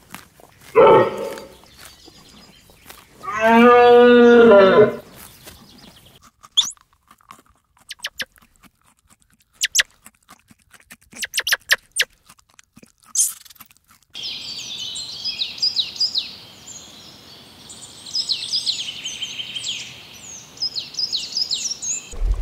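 Animal calls, first a short one and then a long drawn-out one that wavers in pitch about three seconds in, typical of a grazing reindeer's grunting calls. Then comes a run of sharp, scattered clicks and cracks, as of a red squirrel gnawing a cone. In the last third, small birds chirp and twitter rapidly.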